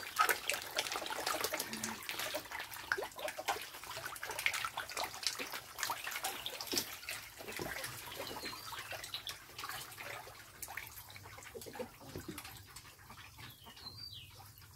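Lele catfish splashing and slapping at the water surface as they snatch floating feed pellets: a dense, irregular patter of small splashes that thins out toward the end.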